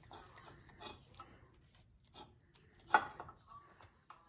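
Siamese cat licking and eating leftover tuna from an open tin can, with small irregular clicks and scrapes of tongue and can. One louder knock about three seconds in.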